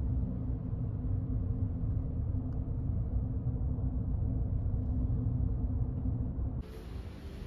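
Steady low rumble of street ambience, muffled with almost no high end. About six and a half seconds in it drops and a quieter, hissier background takes over.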